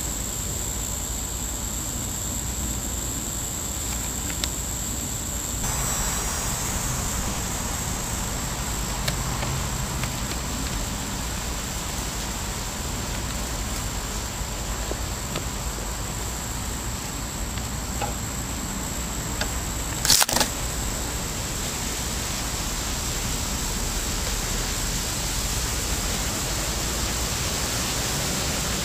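Faint rustles and light ticks of a green vine being woven through the wooden stick spokes of a hand-made crab trap, over a steady hiss and low rumble. A sharp double crack comes about two-thirds of the way through.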